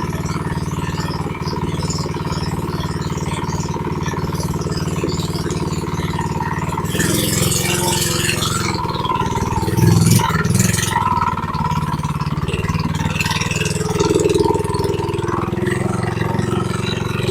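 Predator 212 single-cylinder engine on a mini bike, running at a steady speed. About seven seconds in its note changes and it gets louder, with a rush of noise and uneven throttle.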